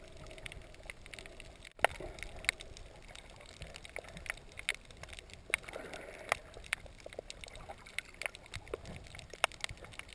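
Quiet underwater sound picked up by a camera held under the sea over a coral reef: a low wash of water with scattered sharp clicks and crackles.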